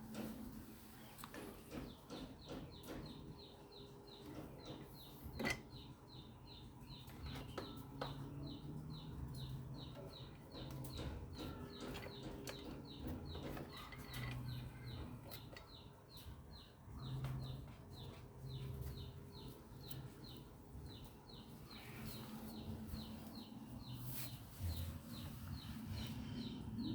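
Faint, rapid bird chirping: short high chirps repeated about four times a second, broken by a few short pauses, with a few scattered light clicks.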